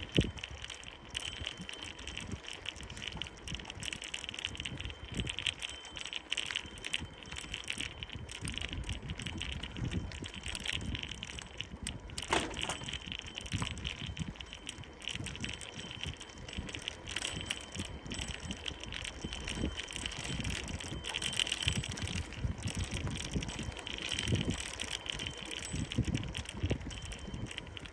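Bicycle rolling over cracked, patched asphalt: steady tyre noise with frequent small rattles and knocks from the bumpy surface, and irregular low rumbling of wind buffeting the microphone. A short falling squeak about twelve seconds in.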